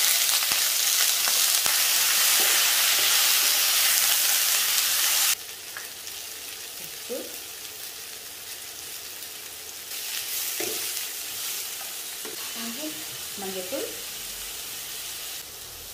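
Cut brinjal and drumstick pieces, still wet from their soaking water, tipped into hot oil with small onions in a pan: loud sizzling that drops away suddenly about five seconds in, then a quieter steady sizzle as the vegetables fry.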